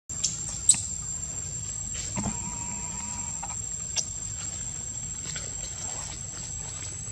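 Steady high-pitched insect drone, with a few sharp clicks, the loudest within the first second.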